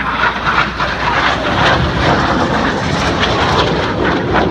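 A pair of RAF Red Arrows BAE Hawk T1 jets, powered by Adour turbofan engines, flying past at low level. Their engine noise swells during the first second, then stays loud and steady.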